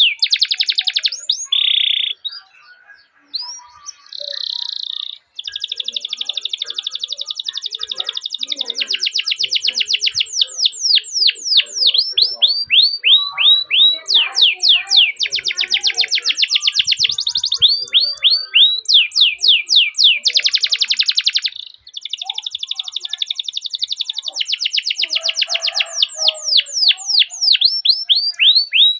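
Domestic canary singing: long, fast rolling trills alternating with series of quick downward-sweeping chirps. The song pauses briefly early on and breaks off for a moment past the middle.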